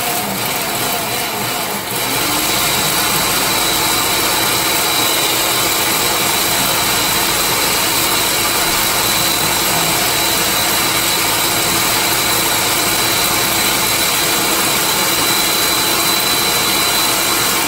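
Electric food processor running steadily at full speed with a constant motor whine, its blade grinding a dry spice rub of peppercorns and salt.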